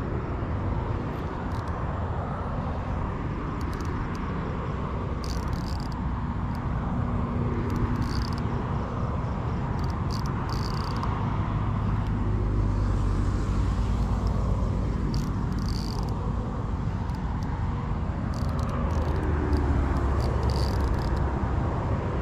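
A baitcasting reel is being cranked to retrieve a lure under a steady low rumble, likely wind on the microphone. Brief high chirps come every few seconds.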